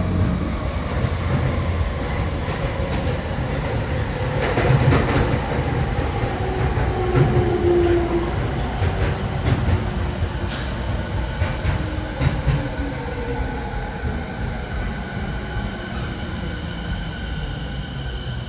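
Interior running sound of a Tokyo Waterfront Area Rapid Transit 70-000 series electric train: wheels knocking over rail joints now and then, and the traction motors' whine sliding down in pitch as the train slows, the running noise easing off near the end.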